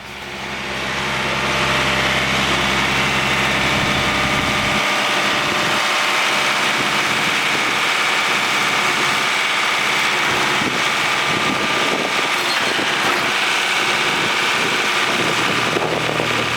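An engine running steadily, swelling up over the first second or two; its low rumble drops away about five seconds in while the higher engine sound carries on.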